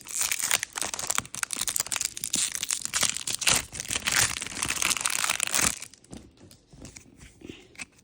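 Foil wrapper of a Pokémon card booster pack crinkling and tearing as it is ripped open, with dense crackling for about six seconds, then only faint rustling.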